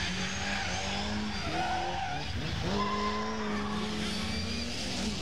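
Rally car engine running hard on the stage. Its note dips, then climbs again about two and a half seconds in and holds.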